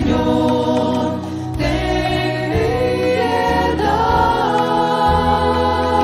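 Mixed choir of men's and women's voices singing a Spanish sung rosary in long held notes, over a steady instrumental accompaniment of violin and guitars.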